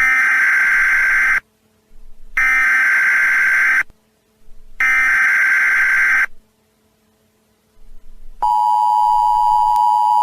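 Emergency Alert System header: three screeching bursts of SAME digital data, each about a second and a half long with short gaps between them. A little past eight seconds in, the steady, harsh two-tone EAS attention signal begins.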